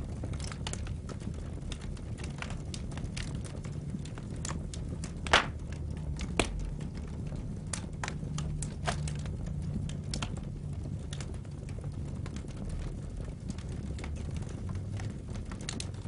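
Wood fire burning in a fireplace: a steady low rumble of flames with irregular crackles and pops from the burning logs, the loudest pop about five seconds in and another a second later.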